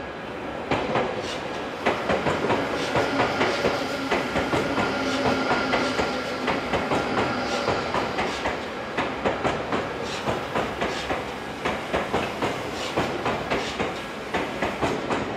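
Odakyu Line electric train passing at a level crossing, its wheels clacking over the rail joints in a steady rhythm of about two to three clicks a second.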